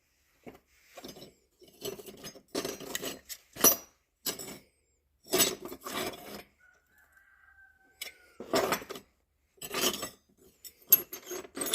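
Metal tools clinking and clattering as they are picked through and handled, in irregular short bursts with pauses between them.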